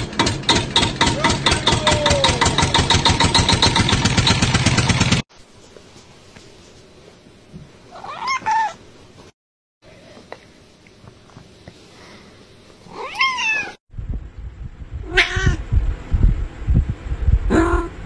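Cats meowing: single short meows about eight and thirteen seconds in, and two more near the end among low thumps. The first five seconds hold a loud, fast, even rhythmic pulsing.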